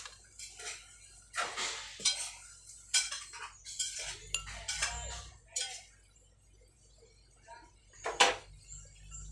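Metal spoon and fork clinking and scraping against a dish while munchkin dough is worked. The clinks come irregularly with short pauses, and the sharpest is about eight seconds in.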